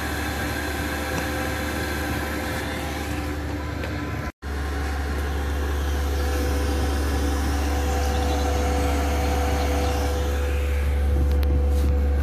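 Diesel air heater running steadily after its combustion chamber has been cleaned of carbon: a continuous fan whir with a steady hum. A brief drop-out about four seconds in, after which a deep low rumble is stronger.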